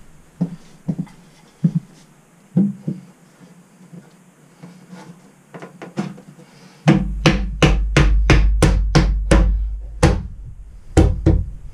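A 2x4 wooden support block being knocked into place in a travel-trailer bed base so it fits snug. A few scattered wooden knocks come first, then about two-thirds of the way in a quick run of about ten sharp knocks, roughly three a second, and two more near the end.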